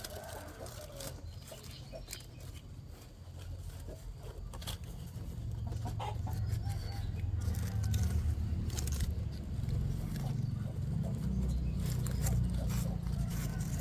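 Chickens clucking, with scattered short clicks. A low rumble comes in about halfway through and stays as the loudest sound.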